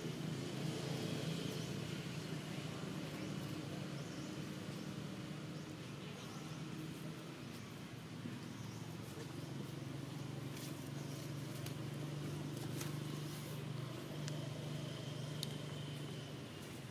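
An engine running steadily with a low hum, with a few faint clicks and a short high chirp near the end.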